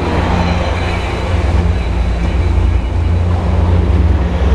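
Amtrak California bi-level passenger cars rolling past close by: a loud, steady low rumble of steel wheels on rail.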